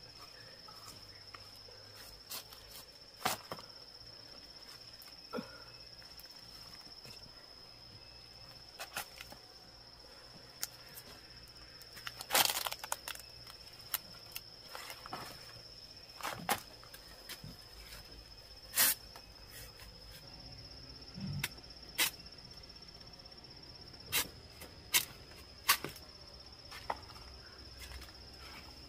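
Irregular sharp chops and cracks as a machete cuts hands of green bananas from the thick, fibrous bunch stalk, about a dozen strikes spaced unevenly, over a steady high insect buzz.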